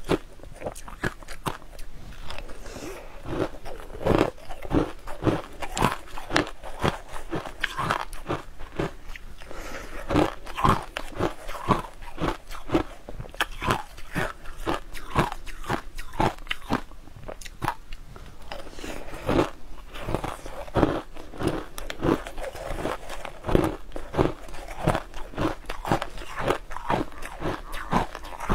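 Purple-coloured crushed ice crunching and being chewed in a person's mouth, heard close up, in a steady run of crisp crunches one or two a second.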